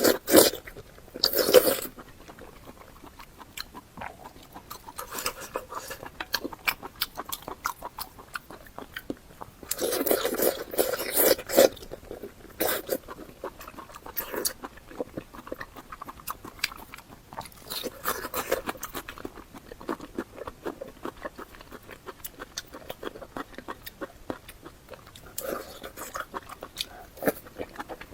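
Close-miked mukbang eating sounds: a person biting and chewing food, with a steady run of small wet mouth clicks and louder bites and crunching in bursts near the start, about a third of the way in, and again near the end.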